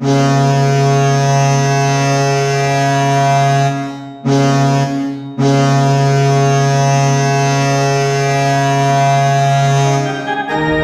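Hockey goal horn sounding loud and low: a long blast of about four seconds, a short blast of about one second, then a long blast of about five seconds. Organ music starts right at the end.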